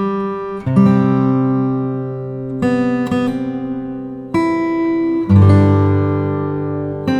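Acoustic guitar music: chords strummed one at a time and left to ring out, a new chord every second or two.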